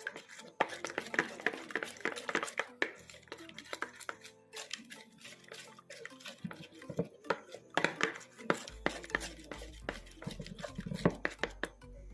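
A utensil stirring in a bowl, with quick irregular clicks and scrapes against the container, as when mixing slime.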